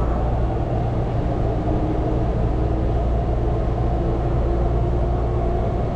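Taichung MRT Green Line metro train running, heard inside the front car: a steady low rumble of wheels on rail, with a faint whine slowly rising in pitch as the train picks up speed.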